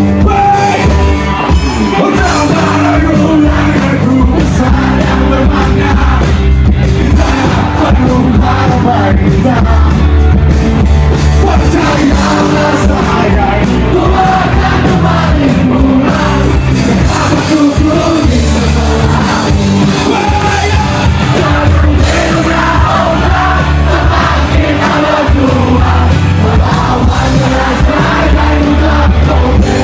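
Live band playing loud, with the crowd yelling and singing along.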